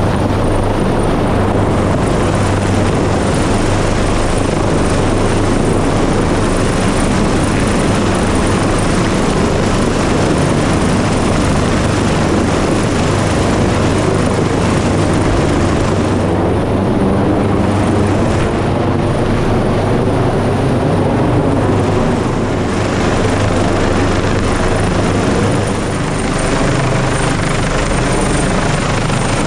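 AgustaWestland AW139 search-and-rescue helicopter hovering close overhead, its rotors and turbine engines making a loud, steady noise.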